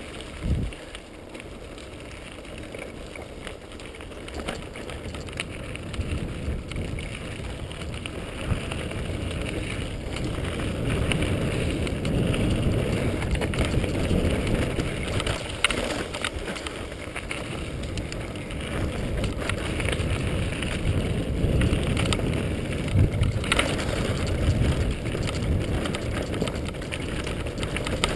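Mountain bike riding over a gravel singletrack trail: rumble of the tyres on loose stone and rattling of the bike, with scattered knocks and wind on the microphone. The noise grows louder about ten seconds in.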